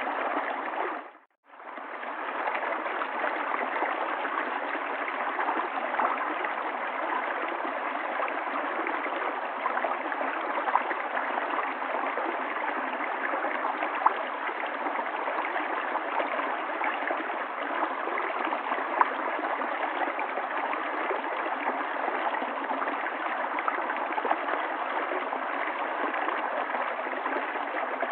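River water flowing steadily. About a second in, the sound briefly fades out to near silence and comes straight back, like a loop point in the recording.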